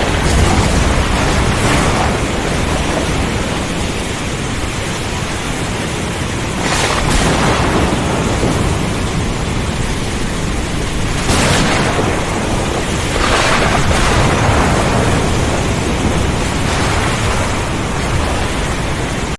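Heavy thunderstorm: a dense, steady rush of rain and wind, with thunder swelling through it several times.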